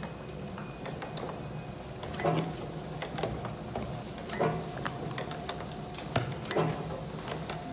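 Glue back binding machine for writing pads running, a steady mechanical clatter of small clicks with a louder clack repeating about every two seconds as the machine cycles. A steady high-pitched whine sits under it.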